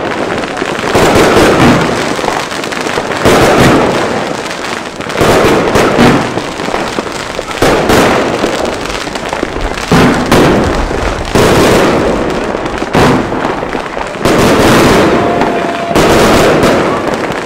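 A 288-shot, 25 mm fireworks cake (Pyrocentury Feuer Frei) firing a continuous rapid string of shots and bursts, with a louder volley every second or two.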